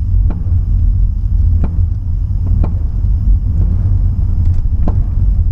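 2011 Nissan Altima 2.5 four-cylinder over a steady low engine and road rumble, with about four sharp pops, a second or more apart, from the passenger side. The owner suspects the engine rocking on its mounts so that the torque strap knocks metal against the body.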